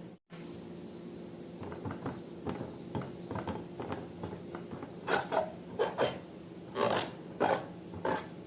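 Slime being squeezed and stretched by hand: irregular soft crackling squelches that grow louder about five seconds in, over a low steady hum.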